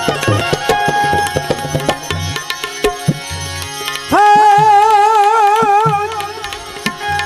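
Gujarati devotional bhajan accompaniment: tabla keeping a steady rhythm under sustained melody notes, with a loud, long held note that wavers in pitch about four seconds in.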